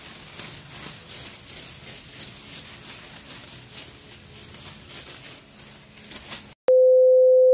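Hissing background noise with irregular faint clicks, cut off about six and a half seconds in; after a brief gap, one steady mid-pitched electronic beep, loud, lasting about a second.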